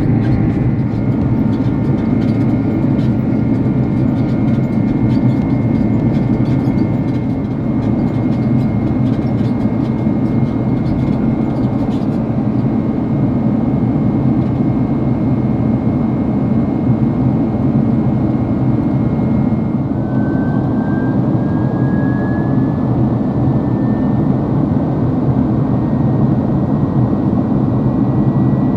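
Boeing 767-300 jet engines and airflow heard from inside the cabin, a steady loud rumble with a thin high whine. About two-thirds of the way through, the whine drops in pitch and then slowly climbs back, a change in engine power.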